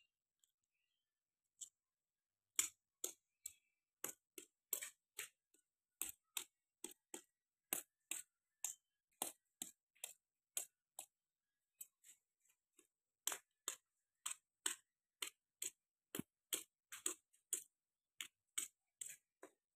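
Small snail shells being cracked one by one with a stone on a concrete floor: a string of sharp, irregular clicks, about two a second, starting about a second and a half in.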